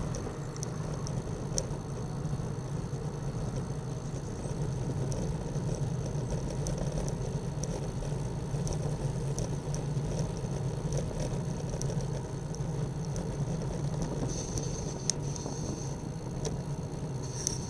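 Bicycle rolling along a wet tarmac road: a steady low rumble of tyres and road, with scattered light clicks and rattles from the bike.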